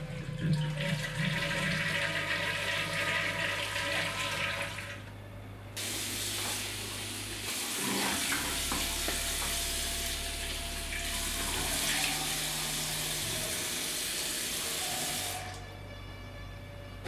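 A wall-mounted flush valve is pressed and the toilet flushes, with water rushing for about five seconds. After a brief pause a bathroom tap runs into the sink, with splashing as water is scooped to the face, until it is turned off near the end.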